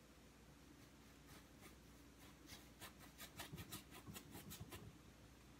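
Faint scratchy dabs and strokes of a small round paintbrush laying acrylic paint onto a stretched canvas, in a quick irregular run from about a second in until near the end.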